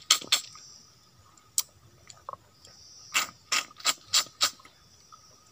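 Wet lip smacks and sucking clicks as a man sucks honey from a stingless-bee honeycomb held to his mouth: a few sharp smacks near the start, then a quick run of about five a little past halfway.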